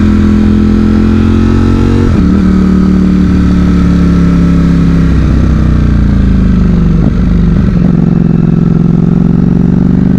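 Ducati Streetfighter V4's 1103 cc V4 engine running under way, heard from the rider's seat, kept low in the revs during running-in. Its pitch steps down about two seconds in, sinks again around seven seconds in, then holds steady.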